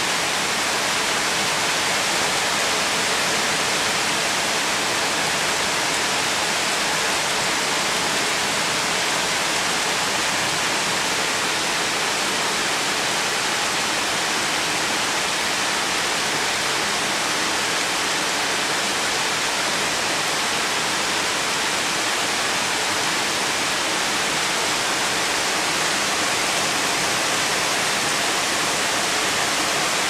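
Heavy rain pouring down in a steady, even rush, with storm runoff water flowing.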